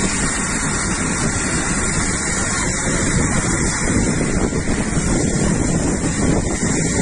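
Fire hose spraying water onto a burning speedboat: a steady rushing hiss.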